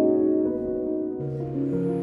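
Soft intro background music of held, overlapping notes, with a lower note joining a little over a second in.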